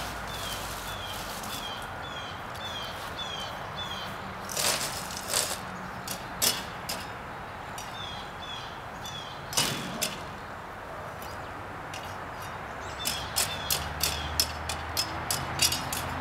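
A hand rake scraping and knocking against the ground in scattered strokes, with a quicker run of knocks near the end. Through much of it a bird repeats a short falling call about twice a second, over a low steady hum.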